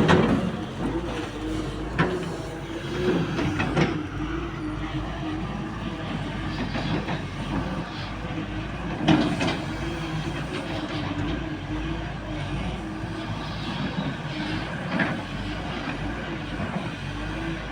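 CAT excavator running steadily, its engine droning, with several sharp clanks and knocks as it works.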